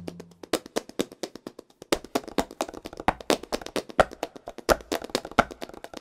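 Flamenco palmas: rhythmic hand clapping, several sharp claps a second in a quick syncopated pattern, with the music's bass and melody dropped out so that only the claps carry the rhythm.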